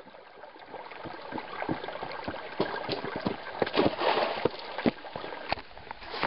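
Shallow mountain stream running over flat rock, with hiking boots splashing and knocking through the water as someone walks up close; the splashing is loudest about four seconds in.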